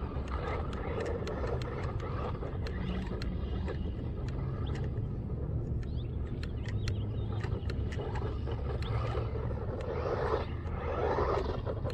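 Small RC car running on a gravel and dirt lot: its motor and tyres on the loose ground come through over a steady low rumble, growing louder about ten seconds in.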